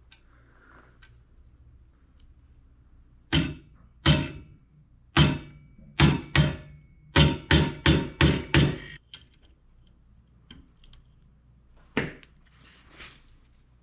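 Hammer tapping a bolt extractor into a drilled-out, stuck bolt on a riding mower's deck: about a dozen sharp, ringing metal-on-metal blows. They come faster between about three and nine seconds in, then one more blow near the end.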